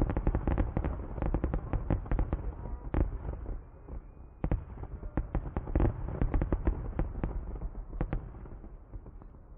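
Aerial fireworks bursting in quick succession, a dense run of overlapping bangs and crackles. There is a brief lull about four seconds in, and the bangs thin out near the end.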